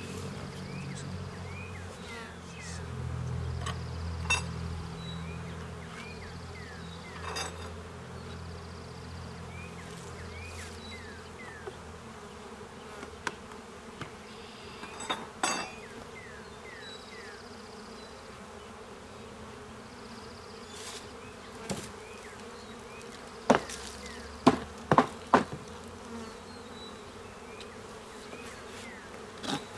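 Honeybees buzzing steadily around an opened hive, closer and deeper in the first few seconds. Sharp wooden knocks and clicks from the hive boxes and hive tool being handled, with a run of loud knocks near the end.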